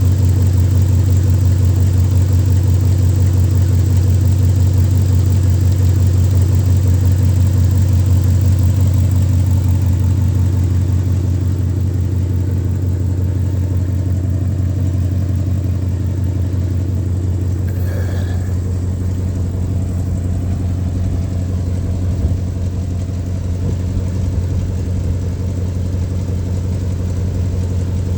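1965 Chevy C10 pickup's engine idling steadily with a low, even hum, easing slightly in level about ten seconds in.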